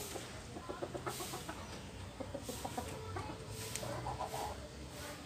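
Chickens clucking in several short runs of calls.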